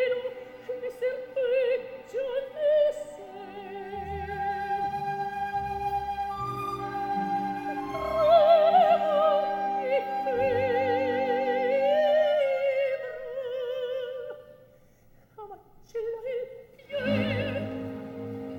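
Operatic soprano singing a recitative with wide vibrato over sustained low orchestral chords. Around fifteen seconds in the music almost stops for a few short notes, then the voice and the orchestra come back in together.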